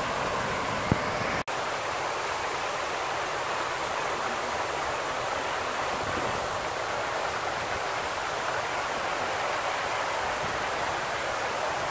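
Fountain jets splashing into their basin, a steady rushing of falling water. The sound drops out for an instant about a second and a half in.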